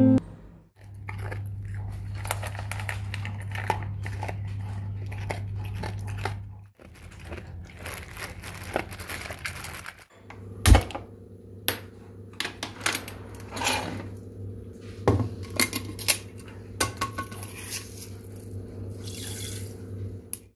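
Steel pots and kitchen utensils clinking and knocking, with a run of sharp knocks in the second half, over a steady low hum.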